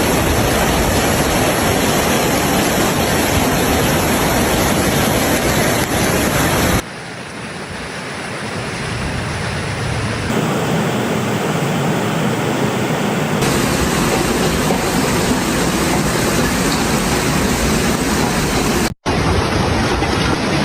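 Heavy rushing water from dams with their floodgates open, a steady loud roar, in several spliced clips that change abruptly about a third of the way in, about halfway, and once more just before the end.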